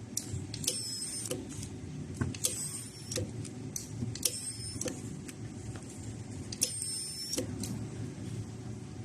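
35 kHz ultrasonic welding machine welding TPU, firing four weld cycles. Each is a high-pitched squeal lasting under a second, opening and closing with a click, over a steady low machine hum.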